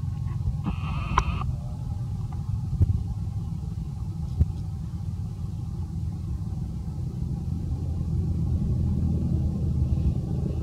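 Steady low rumble, with a brief high-pitched call about a second in and a few soft knocks.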